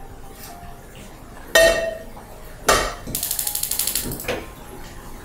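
A metal frying pan clanks twice against the gas hob, then the burner's electric igniter clicks rapidly for about a second as the gas is lit, followed by a softer knock.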